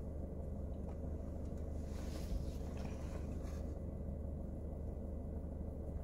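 Steady low hum inside a parked car's cabin, with faint brief rustles of a plastic cream tube being handled about two and three seconds in.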